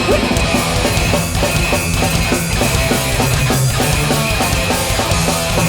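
A hardcore punk band playing live at full volume: distorted electric guitars, bass and drums driving a steady beat, with no vocal line.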